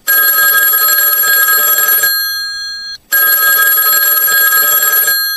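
Telephone ringing twice, each ring a steady, bright tone lasting about three seconds, with a short break between.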